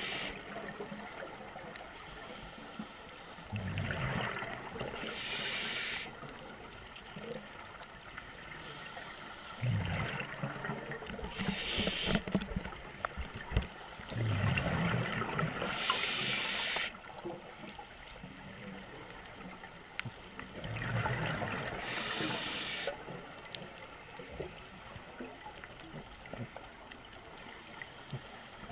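Scuba regulator breathing heard underwater: four breaths a few seconds apart, each a gurgling rush of exhaled bubbles and a hiss from the regulator, over a steady low underwater background.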